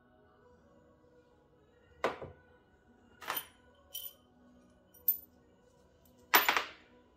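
Five sharp metallic clacks and knocks, spaced about a second apart, as small metal engine parts and tools are handled and set down. The last, about a second before the end, is the loudest, a short rattle of several hits. Faint background music runs underneath.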